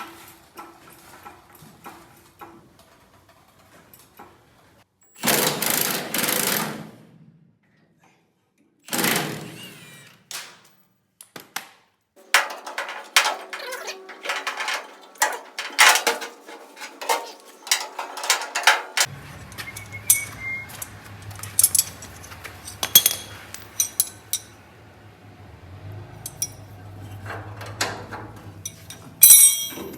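Work on a truck door's hinges: metal tools and parts clattering and knocking, with two short noisy bursts early on and a dense run of clicks and knocks in the middle, ending with a sharp loud knock near the end.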